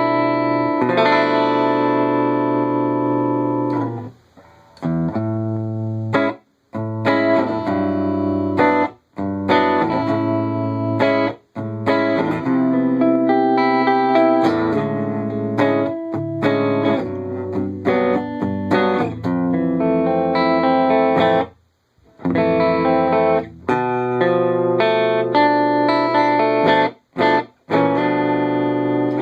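Electric guitar with humbucking pickups, played on the neck pickup through a Wangs VT-50 amplifier with the mids turned down for a glassy, jazzy tone. Chords and single-note phrases, broken by a few short pauses.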